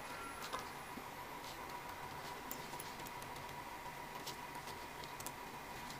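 Faint, scattered small clicks as a thin Allen key works a tiny screw in the metal head of a pen tattoo machine, a handful of ticks a second or so apart.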